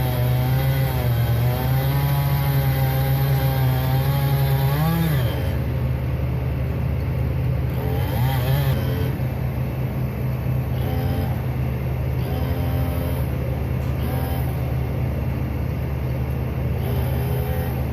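Engine running steadily, its speed wavering up and down.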